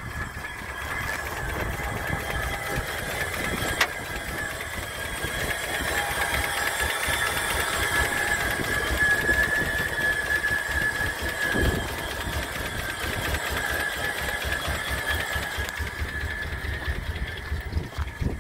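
A 2011 Toyota Tundra's 5.7-litre V8 idling steadily, with a steady high whine over the engine sound. There is a single sharp click about four seconds in.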